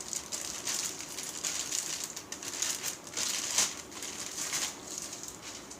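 Packaging being handled and opened, crinkling and rustling in irregular bursts.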